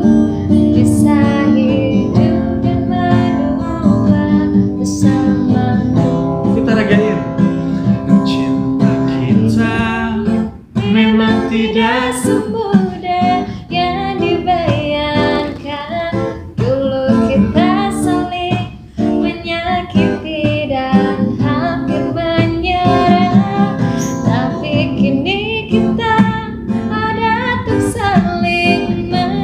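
Acoustic guitar accompanying a woman and a man singing a slow love song together.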